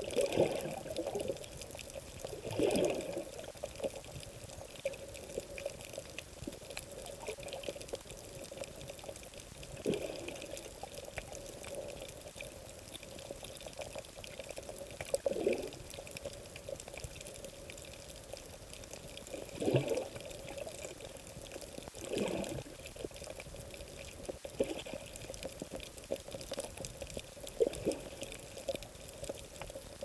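Muffled water noise picked up through an underwater camera, with a gurgling swell that falls in pitch every few seconds.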